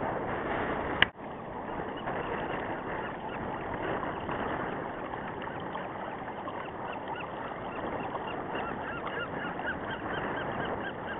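Geese honking over steady wind and water noise, with many short calls from a flock that come thicker toward the end. A sharp click about a second in breaks the sound.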